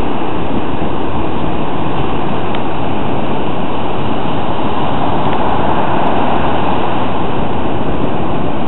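Steady loud roar of wind on the microphone mixed with the wash of breaking surf.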